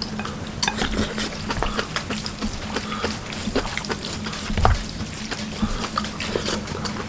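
Wooden chopsticks and a wooden spoon mixing and lifting thin wet noodles in a ceramic bowl: a steady run of small clicks and wet squelches, with one louder knock a little over halfway.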